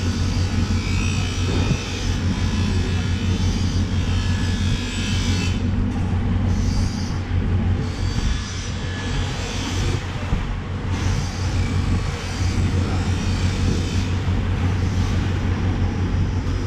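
Steady low rumble under a continuous hiss of background noise.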